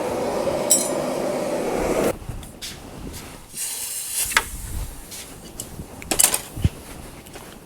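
A forge running with a steady rushing roar that cuts off about two seconds in, followed by a few light metallic clinks from handling the iron.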